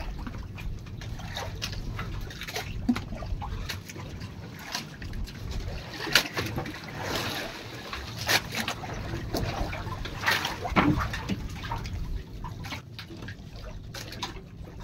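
Sea water lapping and splashing against the hull and bamboo outriggers of a small outrigger boat, with scattered short knocks and clicks throughout.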